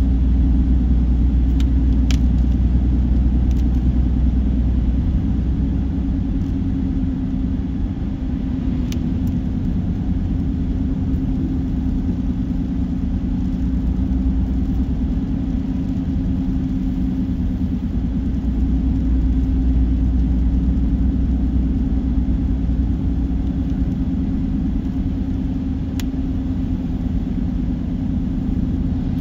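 Steady low rumble of a car driving along a highway, the road and engine noise heard from inside the car, with a few faint clicks.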